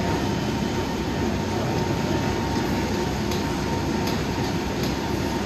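Steady rumbling hum of a busy gym, with treadmills and elliptical machines running, a thin steady tone and a few faint clicks.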